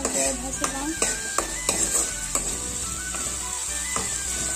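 Chopped tomatoes and onions sizzling in hot oil in a wok, stirred with a metal spoon that scrapes and clicks against the pan several times.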